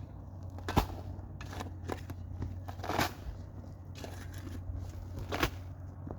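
Excavator digging a trench: a steady low engine hum under irregular cracks and crunches of soil and stones. The sharpest come about a second in, midway and near the end.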